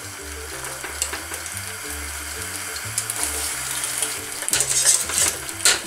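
Water dripping and splashing off cooked penne as it is lifted from the boiling pot with a metal spider strainer and dropped into a pan of cream sauce, with a light sizzle. Background music with a steady low bass line plays throughout.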